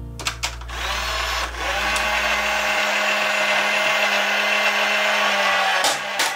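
Toy dump truck's small electric motor whirring steadily as it tilts the tipper bed up, stopping near the end.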